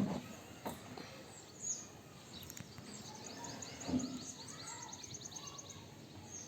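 Birds chirping in the background, including a rapid trill of short repeated high chirps through the middle, with a few faint clicks.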